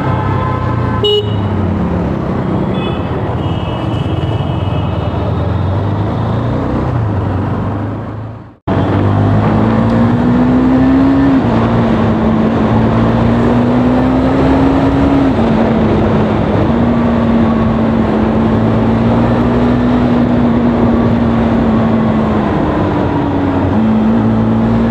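KTM RC 390's single-cylinder engine riding in traffic, its pitch rising slowly under throttle and dropping at each gear change. In the first few seconds other vehicles' horns honk over the traffic noise. The sound cuts out abruptly for a moment about eight and a half seconds in.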